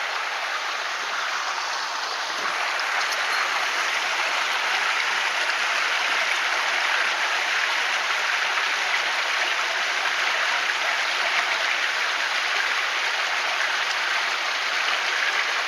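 Mountain stream running over rocks: a steady rush of water that grows a little louder a few seconds in.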